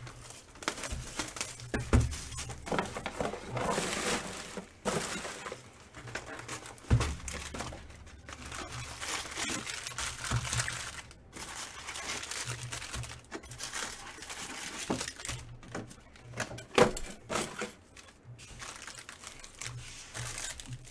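Plastic wrap crinkling and tearing as a sealed box of trading cards is unwrapped and opened, with a few dull knocks as the cardboard box and the foil card packs are handled and set down.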